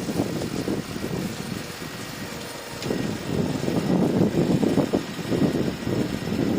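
A bulldozer's diesel engine running at work, rising and falling in level, quieter about two seconds in and louder again from about three seconds in.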